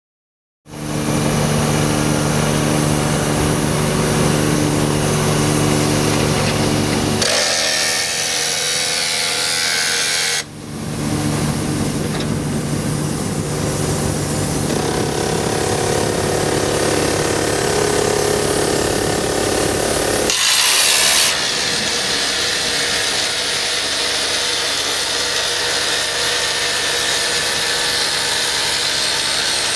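Excavator-mounted PRD-60 rock drill attachment drilling into a stone block, a loud continuous grinding machine noise with the excavator's engine humming steadily under it. It starts abruptly just under a second in, and its character shifts sharply about 7, 10 and 20 seconds in.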